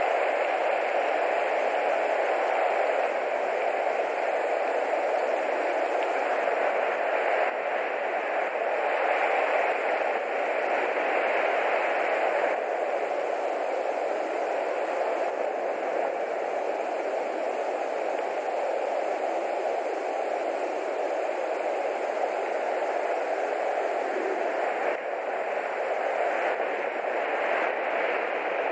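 Steady rainfall, a constant even hiss with no distinct sounds over it.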